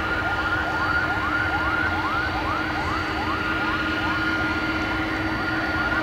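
Boeing 737 jet engines running during the landing rollout: a steady rumble with a high whine. Over it, a rising chirp repeats a little more than twice a second.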